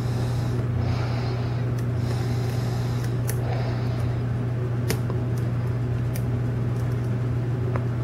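Steady low hum with a few faint, sharp ticks scattered through it: a lock pick working the pins of a brass pin-tumbler lock cylinder under tension.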